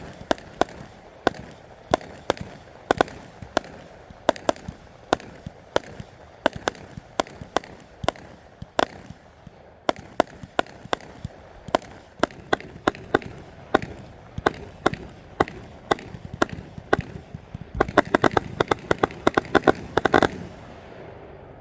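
A 64-shot consumer fireworks cake (Panda Pyro Party Pack number 1, Gold Willow Finale) firing shot after shot, about three sharp bangs a second. It quickens into a rapid finale volley near the end, then stops.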